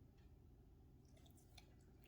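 Near silence: a faint steady low hum with a few soft, wet-sounding clicks.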